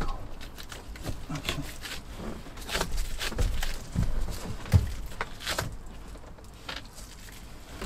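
A few light knocks, taps and rustles as hands work over and press on a new plywood dash panel being test-fitted, with one low thump just before five seconds in.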